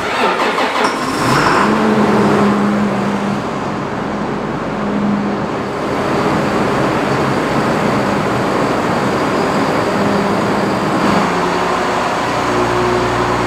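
Case IH Magnum tractor's diesel engine just after starting, settling into a steady run within about two seconds. Its note changes near the end as the tractor moves off.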